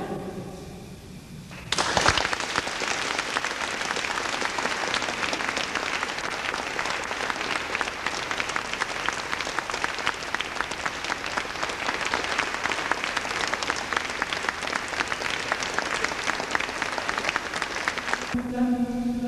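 An audience applauding a choir: the last sung chord fades away in the church's reverberation, then clapping breaks out about two seconds in and keeps going as a dense, steady patter. Near the end the applause cuts off abruptly and the choir begins singing again.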